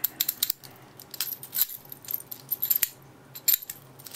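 Irregular small metallic clicks and jingles as a brass padlock and steel lock-picking tools are handled and set down.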